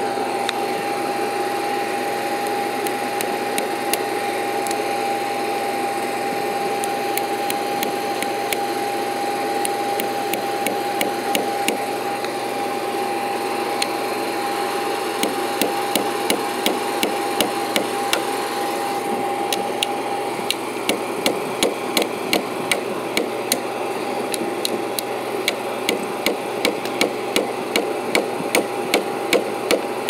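A hammer nails metal cable clips into a wooden utility pole in a run of sharp strikes, about two a second for the second half. Under it runs a steady engine hum, and a high steady whine stops about two-thirds of the way through.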